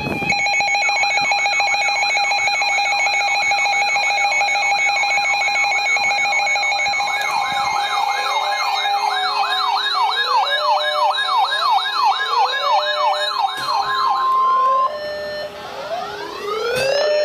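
Several sirens sounding over each other: a fast warbling siren over steady tones, with slower wailing sirens joining about halfway and a rising wail near the end.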